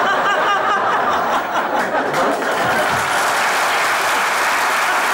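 Studio audience laughing, breaking into steady applause about two and a half seconds in.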